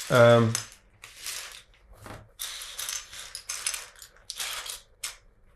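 Loose plastic LEGO bricks clattering and rattling in a string of short bursts as they are handled and shifted about.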